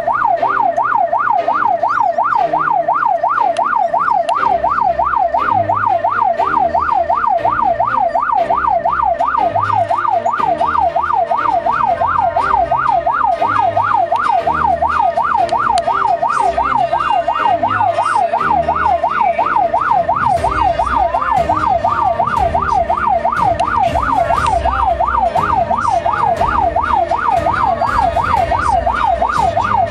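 Ambulance siren yelping continuously, its pitch sweeping up and down about two and a half times a second, heard from inside the ambulance's cab. A low rumble of the moving vehicle runs underneath and grows heavier about two-thirds of the way through.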